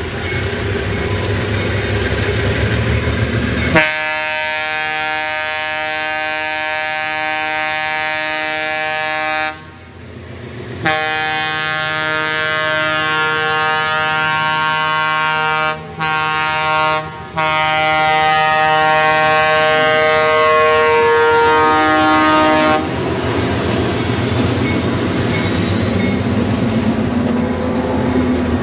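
ALCO RS-3 diesel locomotive blowing its air horn in the grade-crossing pattern: two long blasts, one short, then one long, starting about four seconds in. Before and after the horn, the low rumble of the locomotive and its passenger cars running past.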